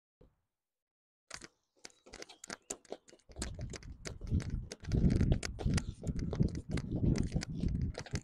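Thick nylon-composite battle rope, doubled and unanchored, being whipped in waves and slapping on a concrete driveway. Scattered sharp slaps start after about a second and build to rapid, heavier slapping with a deep rumble underneath from about three seconds in.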